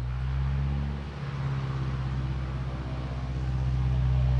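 Piper J3 Cub's 65-horsepower engine and propeller running steadily as the plane taxis across grass, getting gradually louder toward the end.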